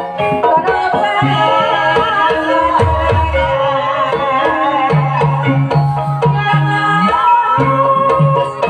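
Live Javanese ebeg (kuda lumping) accompaniment: gamelan with kendang hand drums beating a rhythm, some low strokes sliding in pitch, under ringing metallophone tones, and a wavering melody line above.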